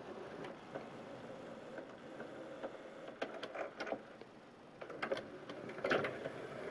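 Sony CDP-C325 carousel CD player's drawer mechanism running faintly and steadily as the drawer is ejected, with several light clicks between about three and six seconds in.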